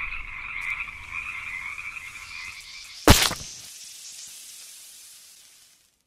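A dense chorus of frogs croaking, ended about three seconds in by one sharp, loud crack, the loudest sound here, whose hiss fades away over the next two seconds.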